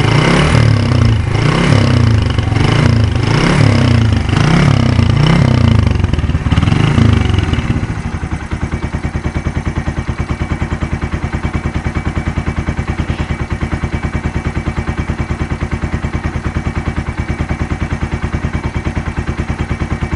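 Suzuki Intruder 125's single-cylinder four-stroke engine, breathing through a cut, chamfered exhaust and an aftermarket air filter, revved in quick throttle blips about once a second. About eight seconds in it drops to a steady idle with an even, pulsing exhaust beat.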